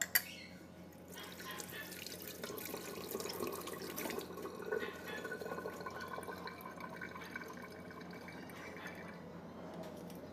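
Running water with dripping, after a single sharp click right at the start.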